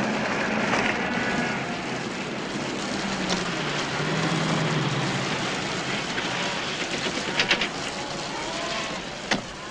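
Steady rain with a vehicle engine running as a car pulls up beside a stopped truck. A quick cluster of clicks comes about seven and a half seconds in, and a single sharp knock near the end.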